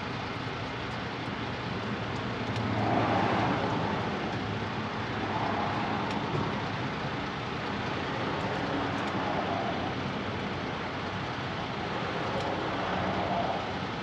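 Steady background vehicle noise, with a low engine-like hum and several swells that rise and fall, like traffic passing.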